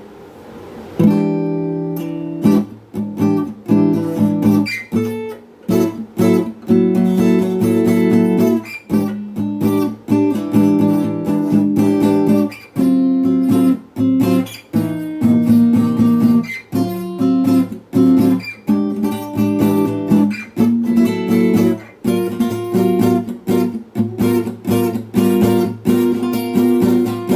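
Jasmine acoustic guitar, unplugged, strummed through a series of chords, each ringing for a moment before the next strum, starting about a second in.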